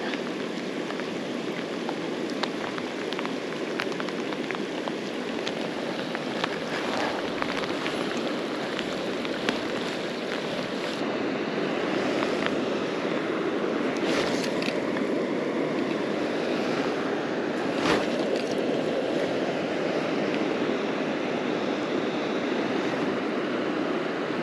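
River water flowing: a steady rushing hiss, with scattered light ticks and one sharper knock a little past the middle.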